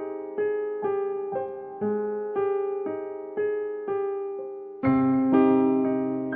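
Background music: a soft electric piano playing a repeating pattern of single notes about twice a second, with a fuller chord and lower bass coming in about five seconds in.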